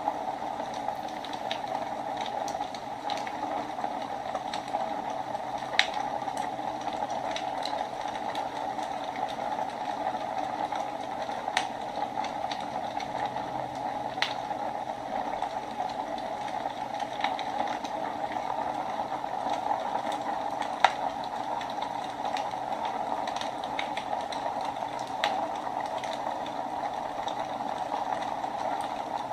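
Wood fire burning in a fireplace: a steady crackling hiss with scattered sharp pops, two of them louder, about six seconds in and about twenty-one seconds in.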